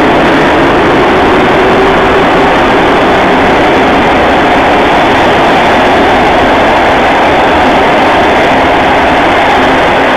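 Passenger coaches of a locomotive-hauled train rolling past and pulling away, a loud, steady rolling noise of wheels on rails.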